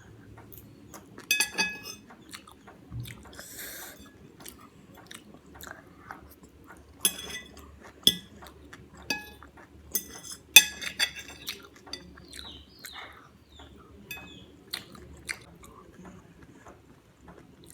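Close-miked eating: chewing and mouth sounds, with cutlery clinking against a plate every few seconds, the loudest clink about ten and a half seconds in.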